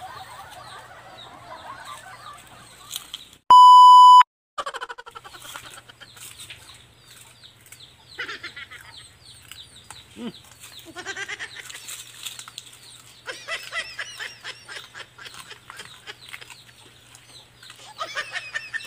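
Chickens clucking and birds chirping over a faint steady hum. About three and a half seconds in, a loud electronic beep tone sounds for under a second and is the loudest sound here.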